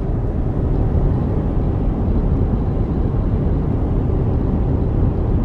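Car driving along an open road, heard from inside the cabin: a steady, low rumble of tyre, road and engine noise.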